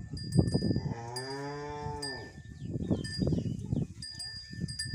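A cow moos once for just over a second, the pitch rising and then falling, amid repeated short squirts of milk into a steel pot as the cow is milked by hand. Brief high ringing tinkles, like a small bell, come several times.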